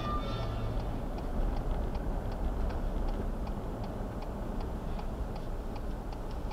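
Car's turn-signal indicator clicking at a steady pace of about three ticks a second over the steady noise of the car driving.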